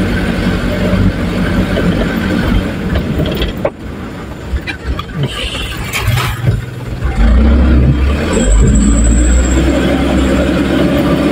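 Vehicle engine running, heard from inside the cab while driving over a rutted dirt road, with knocks and rattles over the bumps. About seven seconds in, the engine gets suddenly louder and deeper, pulling harder over the rough ground.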